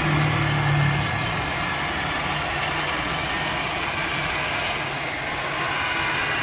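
Electric rotary polisher running steadily with a whine as its foam pad buffs a scooter's painted plastic fairing.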